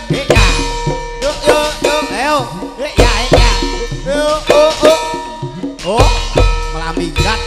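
Javanese gamelan ensemble playing dance music, driven by kendang hand drums, with metallophones ringing over them. Deep strokes fall in pairs about every three seconds.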